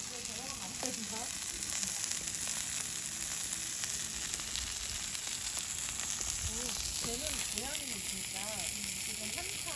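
Food sizzling on a hot stone griddle heated by a wood fire: a steady hiss with fine crackles.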